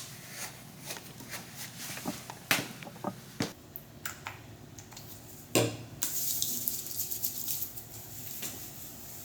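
Water running from a tap into a sink for a couple of seconds near the end, after a series of small clicks and a loud knock of things being handled.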